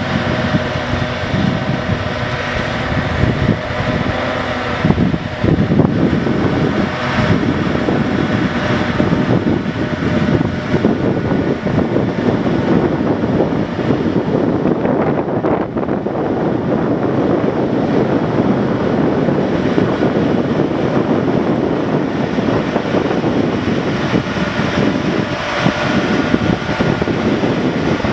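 Engines of a heavy-haul truck convoy running steadily as the trucks roll past, with wind buffeting the microphone.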